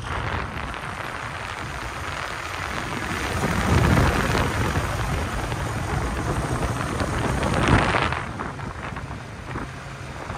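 Diesel tractor engines running as tractors drive past on the road, under heavy wind noise on the microphone. The sound swells about four and again about eight seconds in as they come close.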